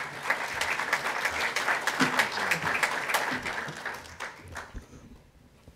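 Audience applauding. The clapping fades away about four seconds in.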